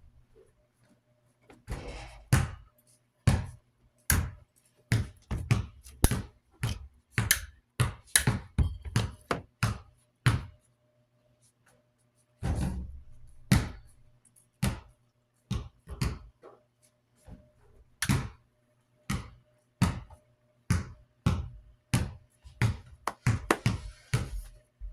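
Irregular knocks and clunks as metal parts of an old desk fan are handled and set down during servicing, over a faint steady hum.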